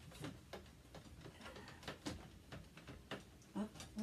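Hard plastic dollhouse parts being handled and pressed into place, giving a scattering of light, irregular clicks and knocks.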